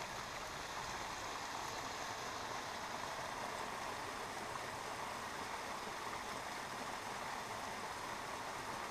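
Small forest creek falling over a short drop into a gully: a steady splashing run of water.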